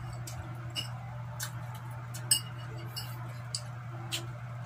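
Close eating sounds: scattered short, sharp clicks and smacks from chewing and from utensils, the sharpest about two seconds in, over a steady low hum.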